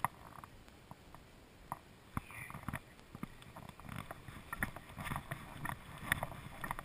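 Irregular soft thumps and rustling from a moving body-worn camera, with light wind on the microphone; the thumps come more often in the second half.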